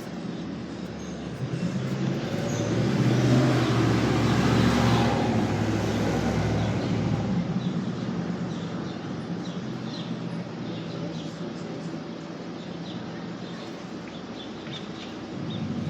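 A road vehicle passing by: a low engine and tyre sound that swells, is loudest about four seconds in, and fades away by about nine seconds.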